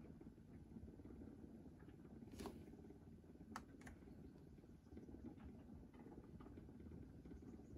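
Near silence with low room noise and a few faint, short clicks, about two and a half seconds in and twice more at around three and a half to four seconds: fingers pressing the buttons of a Milwaukee MA885 digital refractometer.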